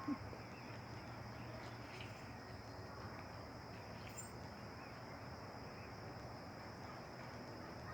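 Faint outdoor ambience: a steady high-pitched drone of insects, with a few faint clicks.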